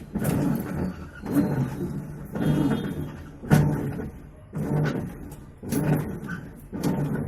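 LG WF-T7519RS top-load washing machine driving its pulsator in short bursts about once a second, each burst starting with a knock. This is the gearbox noise the owner reports as a problem.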